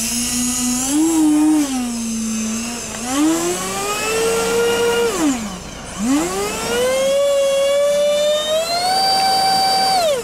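Twin 70mm electric ducted fans of a model Boeing 737 MAX 8 spooling up and down on the ground in three throttle run-ups. The whine climbs higher each time, and the last is held high before it winds down at the very end. This is a ground run-up checking the fans after a broken fan rotor was replaced.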